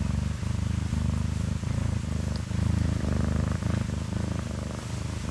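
Domestic cat purring loudly close up: a steady low rumble that dips briefly about once a second as the cat breathes.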